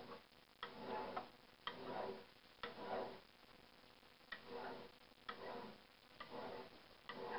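A dull hand file skidding across steel held in a vise, about seven short push strokes roughly a second apart. It rubs and skips over the surface instead of biting, because its teeth have lost their sharp edges.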